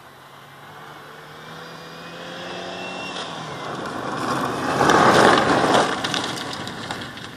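Škoda Felicia being driven hard on a dirt track, its engine growing louder as it approaches and then passing close with a loud rush of tyre and dirt noise about five seconds in, before fading away.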